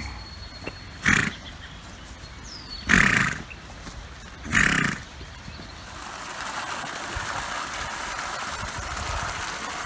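A large farm animal gives three loud, short snorting blasts, about a second, three seconds and four and a half seconds in. Then water starts running steadily, as if filling a drinking trough, from about six seconds in.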